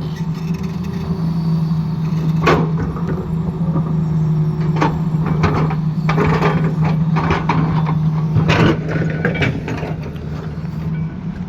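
Excavator's diesel engine running steadily, with irregular sharp knocks and clanks from the machine's work.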